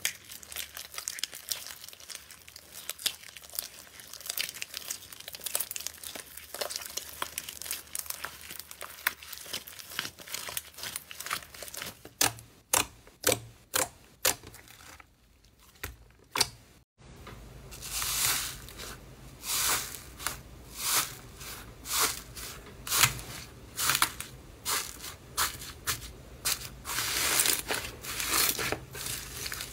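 Hands working slime. Pink pearlescent slime crackles finely as it is stretched and pulled apart. Then a run of sharp pops comes as fingers press into glossy slime, and a thicker textured slime is squeezed in loud squishy crunches about once a second.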